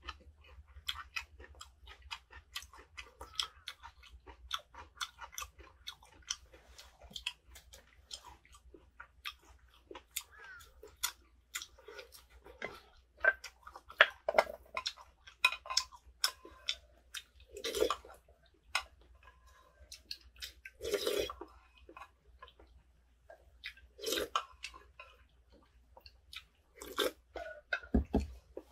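Close-miked chewing of a mukbang meal of grilled thin-sliced pork belly: a run of wet mouth clicks and smacks. There are a few louder clatters and a dull thump near the end, fitting chopsticks knocking on the cast-iron pan and dishes.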